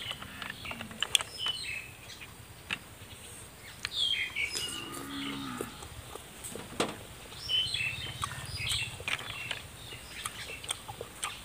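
Cattle mooing, once at the start and again about five seconds in. Underneath are short wet sucking and slurping sounds as snail meat is sucked out of the shells.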